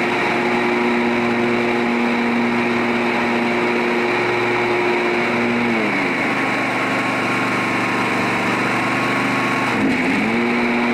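Husqvarna riding mower engine running steadily at about half throttle while its electric PTO blade clutch is switched on and off. The engine pitch shifts at the start, drops about six seconds in and rises again near the end. The cycling, done with no load, is to burnish a newly fitted clutch.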